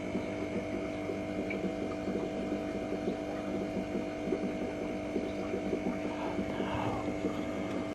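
Aquarium pump running, a steady electrical hum with a faint crackle over it.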